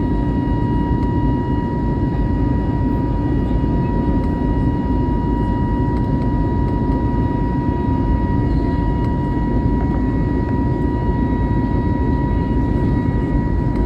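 Steady cabin noise inside an Airbus A320neo: an even low rumble and hiss with a thin, steady high whine over it.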